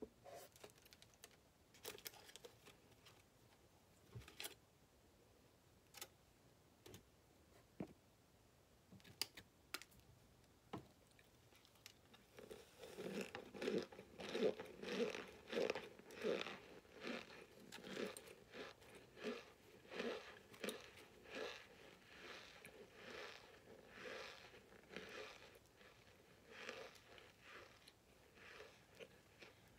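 Chunks of cornstarch being chewed close to the microphone: squeaky, crunchy chewing at about three chews every two seconds, starting about twelve seconds in. Before that, only scattered light clicks and crinkles of aluminium foil.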